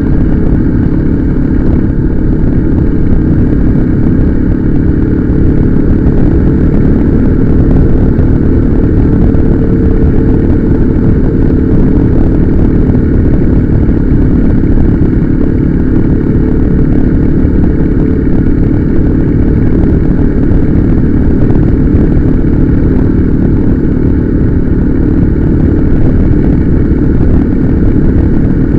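Motorcycle being ridden, its engine running steadily as a loud, even low rumble with no clear revs or gear changes.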